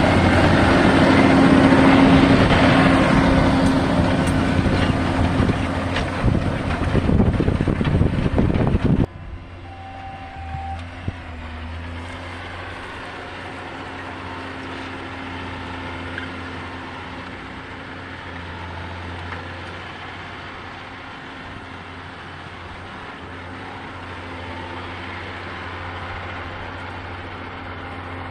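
John Deere tractor's diesel engine running under load while ploughing, loud and close for about nine seconds, then cutting suddenly to a quieter steady engine hum.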